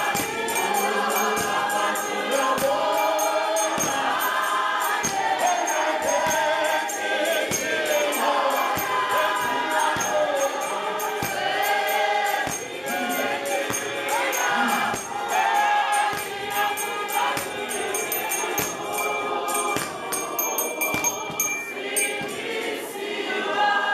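Church youth choir singing a gospel song in harmony, with a steady clapping beat.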